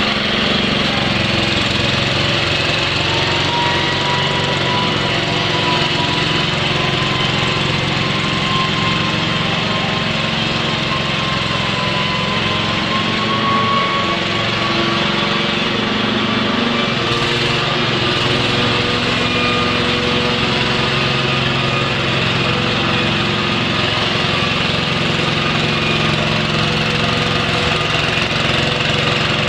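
Machinery running steadily, with a hum of motors and a faint whine that slowly rises in pitch.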